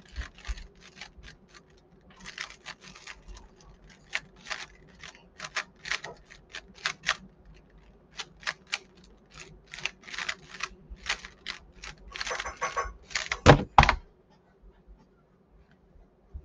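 3x3 Rubik's cube being turned fast in a timed solve: quick runs of clicking and clacking from the plastic layers. About 13.5 seconds in come two loud thumps as the cube is set down and the timer is stopped.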